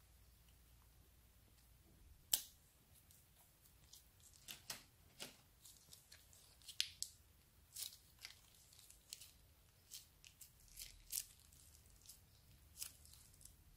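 Plastic zip bag crackling and clicking as it is handled, cut open and squeezed to push slime out, with one loud sharp snip about two seconds in. The crackles come irregularly, several a second at times.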